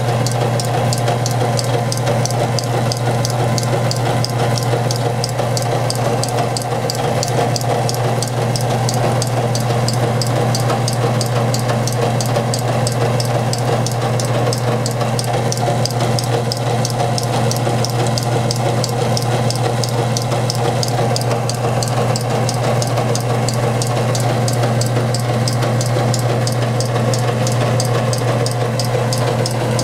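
Whirlpool appliance's motor and belt drive running, with a steady low hum and a fast, regular clicking of about three clicks a second. The clicking is the noise the owner is seeking a repairman's help with.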